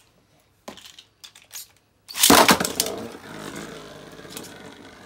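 A few light clicks as a Beyblade is handled, then the top is launched into the plastic stadium about two seconds in with a sudden loud clatter, and it spins there with a steady whir that fades slowly.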